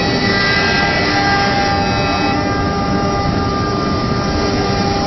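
CNC router for door and window work running, a loud steady machine noise with several held whining tones. The highest part of the noise drops away a little over two seconds in.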